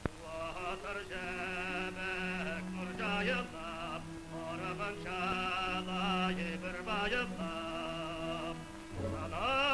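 Opera music on an old film soundtrack: a wavering, vibrato-laden melody over held low notes.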